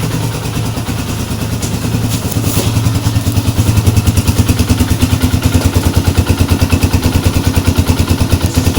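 RC250 motorcycle's carbureted engine idling steadily with an even, fast pulse, a little louder from about three seconds in. It was cold-started without choke and caught on one press of the starter, which shows the freshly cleaned carburetor has cured the hard starting.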